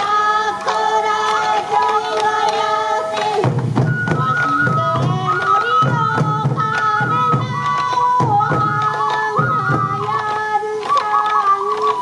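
Morioka Sansa dance music: a bamboo flute melody over repeated strikes of small taiko drums carried and beaten by the dancers, with some singing.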